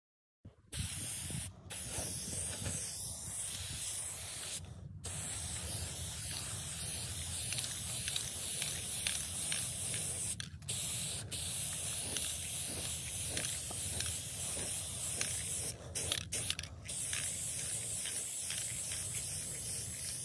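Aerosol spray paint can spraying in long continuous hisses, cut by several brief pauses as the nozzle is let go, over a low rumble.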